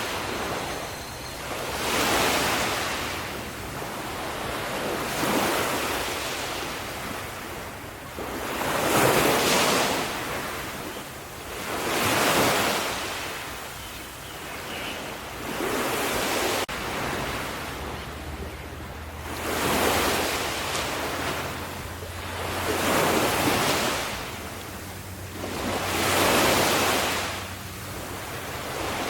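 Ocean waves breaking and washing up the shore, each surge swelling and fading every three to four seconds.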